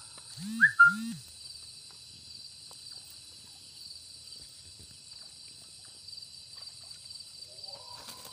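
Night insect chorus, a steady high trilling in two pitch bands with an even pulsing rhythm. About half a second in come two loud, short, low swooping calls in quick succession.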